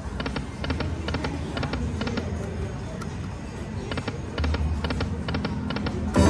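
High Stakes Lightning Link slot machine spinning, its reels landing one after another as a run of short, evenly spaced electronic tones over the machine's sound-effect music. A brief loud hit comes near the end.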